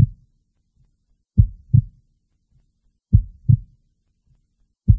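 Heartbeat sound effect: pairs of low thumps (lub-dub), one pair about every second and three-quarters, with silence between.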